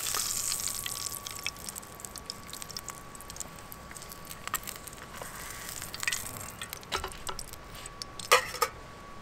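Pork sizzling in a titanium fry pan, the sizzle fading over the first couple of seconds. Then scattered light metal clinks of a fork against the pan, the loudest near the end.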